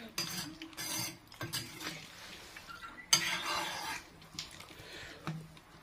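Metal ladle stirring chicken curry in a metal kadai, clinking and scraping against the pan several times, loudest about three seconds in.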